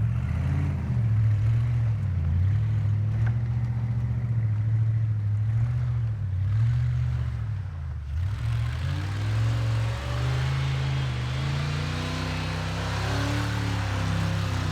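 Vehicle engine revving while off-roading, its pitch rising and falling. About eight seconds in it drops, then climbs slowly under load, with more hiss on top.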